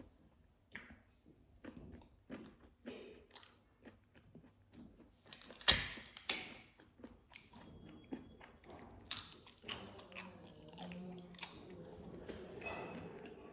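Close-up chewing and biting into food, with a run of wet mouth noises and crunches. One sharp, loud crunch comes about halfway through.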